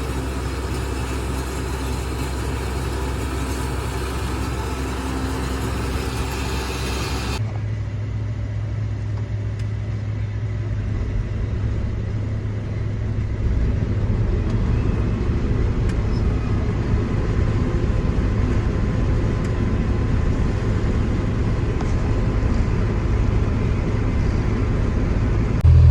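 Vehicle engine running steadily. About seven seconds in the sound cuts to a different, deeper engine drone, which grows louder about fourteen seconds in.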